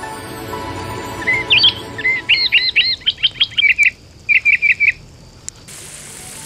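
A songbird chirping in quick clusters of short rising-and-falling notes. Near the end a steady hiss starts suddenly: sauce sizzling in the wok.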